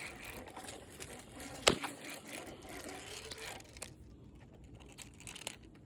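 Faint rustling and handling noise, with one sharp click a little under two seconds in.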